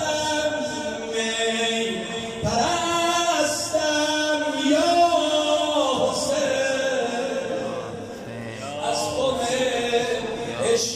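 A male reciter singing a Persian religious chant into a microphone, amplified through the shrine's loudspeakers, with long held notes that bend and waver in pitch.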